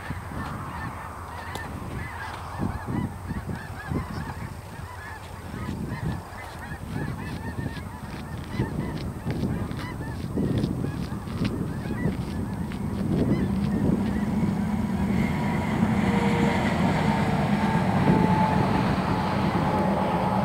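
Many short bird calls overlap through the first half, from a flock calling out of sight. From about two-thirds of the way in, a low steady rumble grows louder: the approaching train's diesel locomotives.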